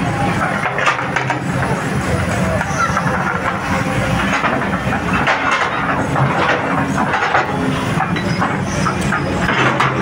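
A heavy engine running steadily, with the voices of people around it.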